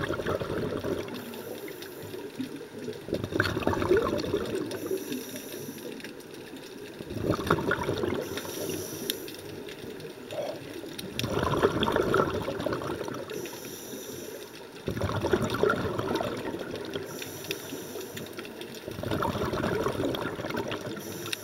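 Scuba diver's regulator breathing: a rush of exhaled bubbles about every four seconds, each lasting a second or two, with a faint hiss of inhalation in between.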